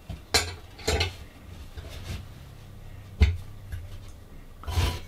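Metal expandable ceiling-fan brace bar clinking and knocking as it is twisted by hand through a hole in the drywall ceiling, being tightened so its end spikes dig into the trusses. About four separate clinks, the sharpest about three seconds in.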